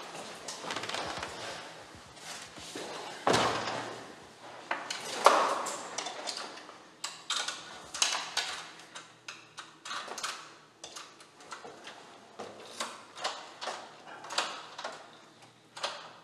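A key fumbling at a front-door lock, struggling to find the keyhole: many short clicks, taps and rattles of metal against the lock and door, with two louder thuds a few seconds in.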